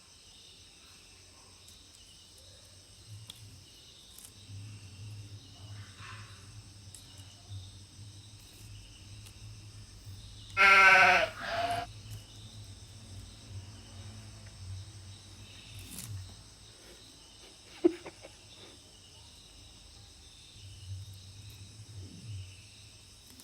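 A kitten gives one loud, drawn-out meow about halfway through, with faint scuffling around it and a single sharp click a few seconds later.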